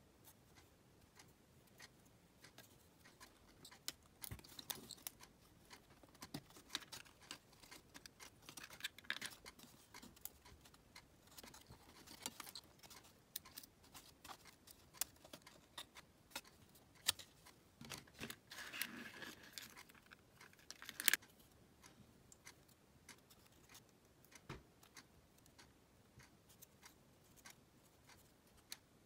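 Thin laser-cut plywood puzzle parts being handled and fitted together: scattered light clicks and taps of wood on wood, with a few short scraping rubs as parts slide against each other, and one sharper click about two-thirds through.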